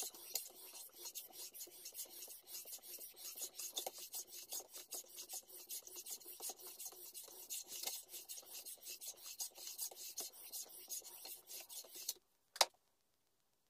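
Japanese kitchen knife blade stroked back and forth on a whetstone in a sharpening jig: a steady run of rasping strokes. Near the end the strokes stop and a single sharp click follows.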